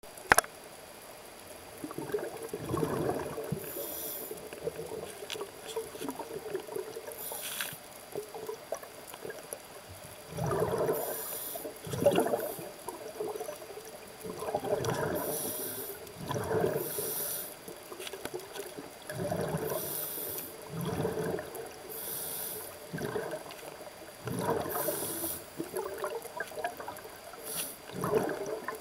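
Scuba diver breathing through a regulator underwater: hissing inhalations and bubbly, gurgling exhalations, about one breath every four to five seconds. A sharp click right at the start.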